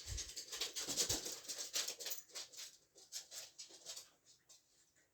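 Dogs playing indoors: a rapid run of scratching and tapping, dense for the first few seconds and then thinning out, with a low thump at the start and another about a second in.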